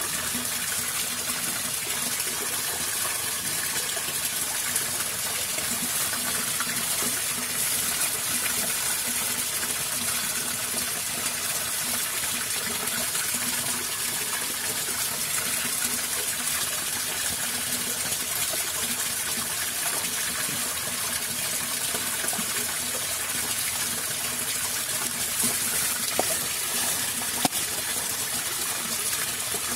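Water flowing steadily in a drainage ditch, with a couple of light clicks near the end.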